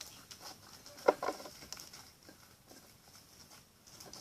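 Small polystyrene foam beads being poured out, pattering in a quick scatter of light ticks, with one louder tap about a second in.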